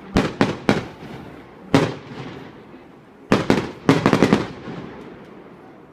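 Firework display shells bursting: three quick bangs at the start, a single bang a little before two seconds, then a rapid volley of bangs from about three seconds in, each followed by an echoing rumble that dies away.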